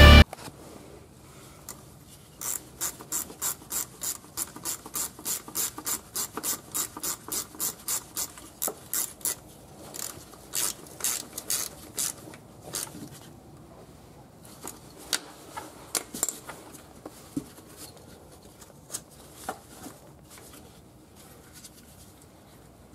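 Gloved hands rubbing and scraping on the transfer case housing while working the speedometer adapter into place. A steady run of strokes, about three a second, for several seconds, then scattered strokes.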